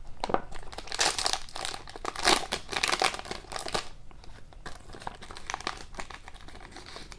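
Wrapper of a trading card pack being torn open and crinkled by hand, busiest in the first half and lighter near the end.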